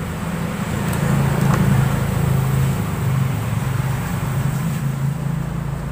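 Road traffic passing close by: a low, steady engine hum that swells about a second in and slowly eases off.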